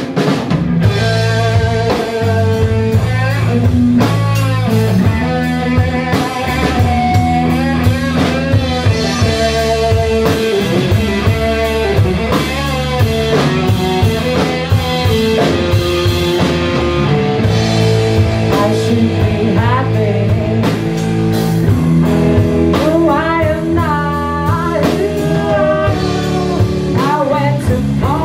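Three-piece rock band playing live: amplified electric guitar, electric bass guitar and drum kit, loud and continuous.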